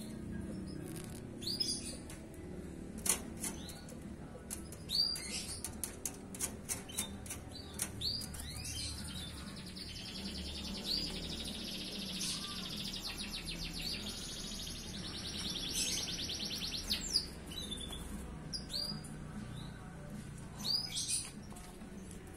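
Four-month-old canary in early song, just beginning to find its voice: scattered short chirps, then a fast trill lasting several seconds in the middle, with more chirps after it. A few sharp clicks sound among the calls.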